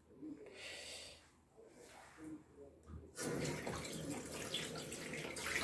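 Steady rush of running water, like a kitchen tap, starting suddenly about three seconds in after a few faint soft sounds.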